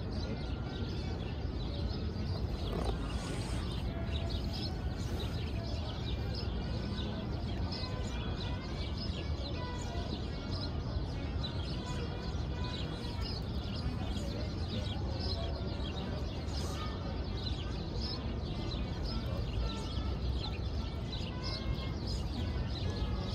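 Small birds chirping in quick, scattered calls over a steady low hum of city traffic.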